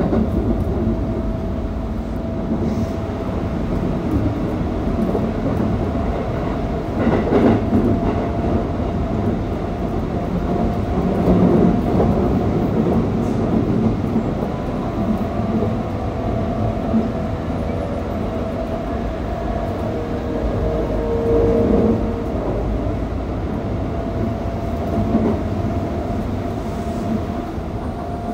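Keikyu 600-series electric train (Mitsubishi GTO-VVVF inverter) running at speed, heard from aboard car DeHa 608-8: a steady rumble of wheels on rail with a faint steady whine. The rumble swells louder a few times, about seven, twelve and twenty-two seconds in.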